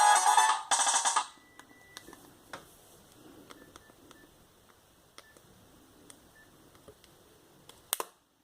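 BenQ A500 clamshell mobile phone's built-in polyphonic ringtone playing, then cutting off about a second in. A short beep follows, then scattered faint clicks, with a sharper double click near the end.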